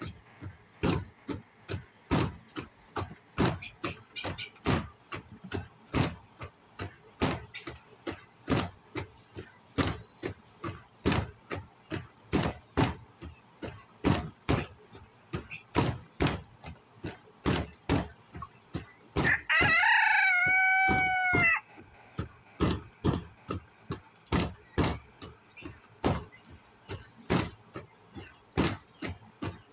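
A rooster crows once, about twenty seconds in, a single drawn-out call over a steady run of sharp knocks, about two a second.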